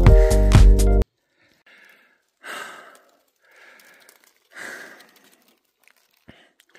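Electronic intro music cuts off abruptly about a second in, then a person breathing heavily, soft breaths in and out in an even rhythm about once a second.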